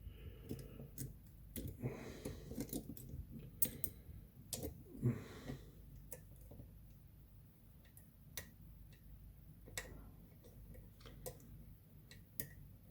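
Light, irregular metallic clicks and small scrapes from a wire lever pick and a thin tension tool working inside an ERA 975 five-lever padlock, as the levers are lifted one by one. The clicks come more often in the first half and thin out toward the end.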